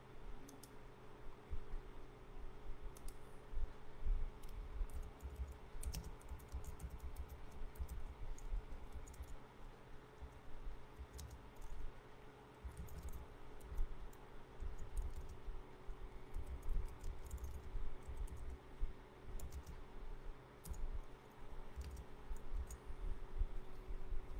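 Typing on a computer keyboard: irregular bursts of key clicks with soft low knocks, over a faint steady hum.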